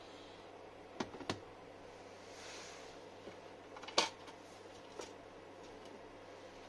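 A few sharp clicks and knocks of tools or parts being handled, the loudest about four seconds in, with a short hiss a little before it, over a faint steady hum.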